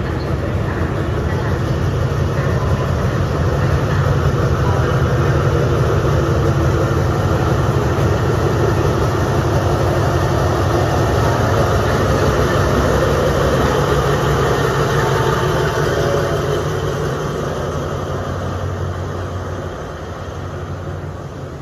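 SRT Alsthom diesel-electric locomotive's engine running with a steady low rumble as it moves past, growing louder over the first few seconds and fading away after about sixteen seconds.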